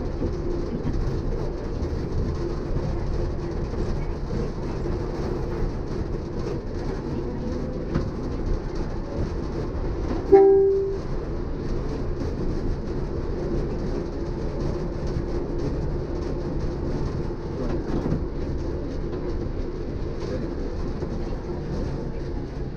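Shonan suspended monorail car running along its overhead track: a steady low running noise with a faint hum. About ten seconds in comes one short horn note, the loudest sound, lasting about half a second.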